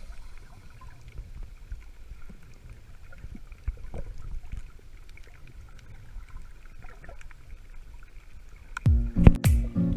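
Muffled underwater noise picked up by a submerged camera: a low rumble of moving water with faint scattered clicks. Loud electronic music with a heavy beat comes in near the end.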